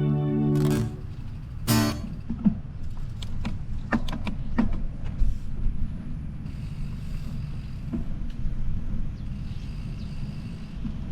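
Low rumble of wind and road noise on a bicycle-mounted or handheld microphone while riding, with scattered clicks and rattles. A guitar song cuts off within the first second.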